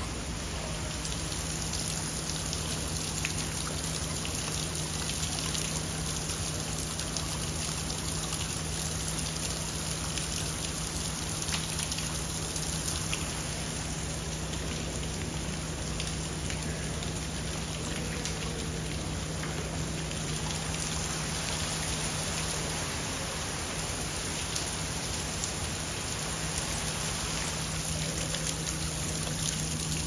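Falling water: a steady splashing hiss with many small drop ticks through it, with a steady low hum underneath.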